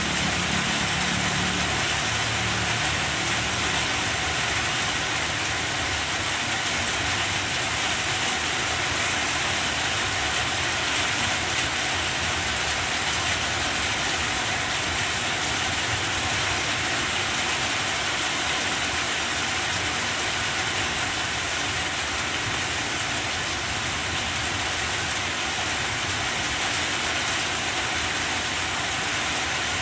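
Steady rain falling on the broad leaves of banana plants, an even hiss that does not let up.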